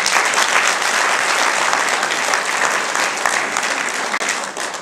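Audience applauding, a steady dense clapping that tapers off near the end.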